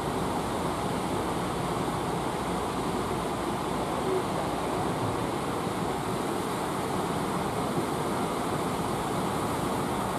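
Steady wash of ocean surf breaking on the beach.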